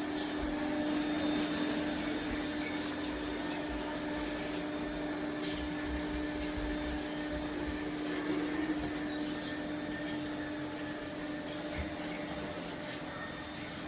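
ECOVACS DEEBOT T50 Max Pro robot vacuum running, a steady motor hum with one strong low tone.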